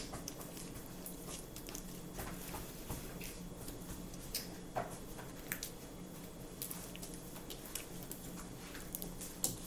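Sticky homemade slime being kneaded by hand: soft, irregular squelches and wet clicks as it pulls off the fingers, over a faint steady hum.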